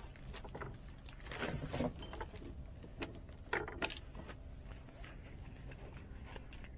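Faint handling noise: a plastic bag rustling and small metal tools and parts clinking as they are packed back into it, with louder rustles about one and a half and three and a half seconds in.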